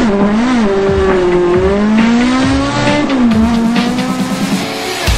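Car engine revving hard, its pitch rising and falling several times and dropping about three seconds in.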